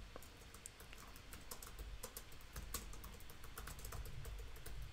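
Typing on a computer keyboard: faint, quick, irregular key clicks as words are typed.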